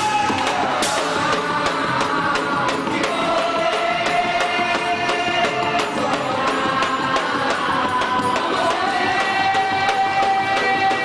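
Festa junina folk music: sung melody held in long notes over a quick, steady percussion beat.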